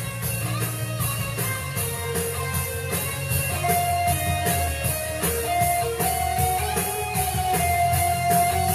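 Instrumental intro of a pop-rock song: guitar playing over a steady beat, with a higher sustained melody line coming in about three and a half seconds in.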